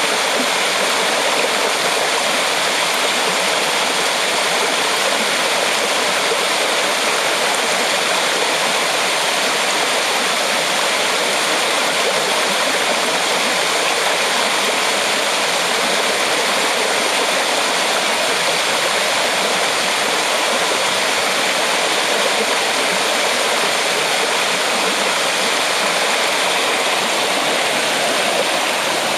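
Mountain stream spilling over a rock ledge in a small cascade: a loud, steady rush of falling water that stays even throughout.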